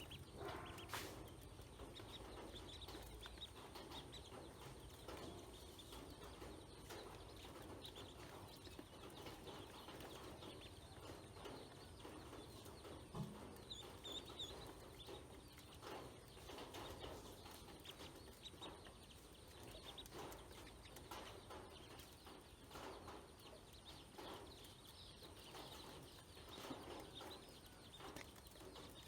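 Faint soft calls of domestic fowl, with many small irregular clicks and taps throughout and a few brief high chirps about halfway through.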